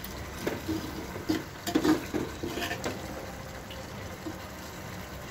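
Fresh cream being poured into a clay handi of mutton masala and stirred in with a metal spoon. A scatter of short scrapes and clinks of the spoon against the pot comes in the first three seconds, then it goes quieter.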